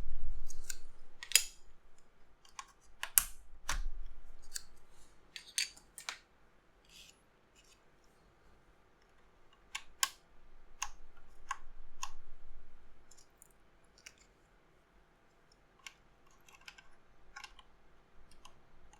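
Plastic keycaps being pulled off and pressed onto the switches of an ErgoDox EZ mechanical keyboard: irregular sharp clicks and snaps, some in quick clusters, with quiet stretches in between.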